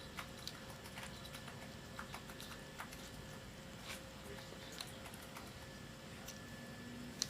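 Light, scattered clicks and taps of small plastic doll accessories and their packaging being handled, over a faint steady hum.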